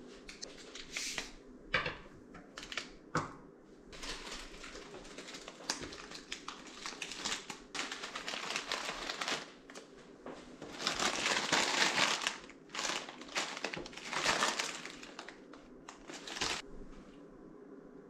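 Crinkly plastic bags of dried hibiscus and rose buds rustling as they are handled and set down on a tabletop, in several bursts, with a couple of sharp knocks in the first few seconds.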